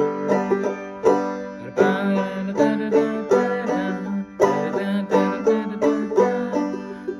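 Five-string banjo played clawhammer style: a run of quick plucked notes over a steadily ringing string.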